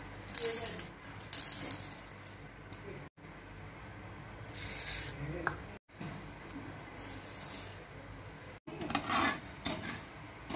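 Seeds and lentils for a tempering (mustard seeds, chana dal, urad dal, cumin) tipped from a small steel bowl into oil in a metal kadai, heard as several short, hissy spurts. A spatula stirring them in the pan follows near the end.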